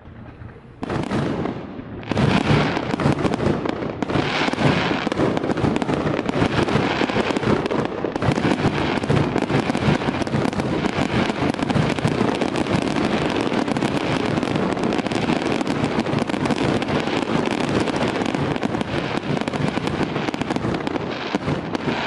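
Aerial fireworks display: many shells bursting and crackling at once in a dense barrage. It builds over the first two seconds and then keeps up loudly without a break.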